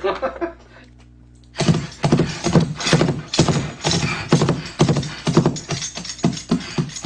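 Playback of a Foley horse track: hoofbeats made with hoof props, a steady run of clip-clops starting about a second and a half in, mixed with jingling bridle and horse snorts.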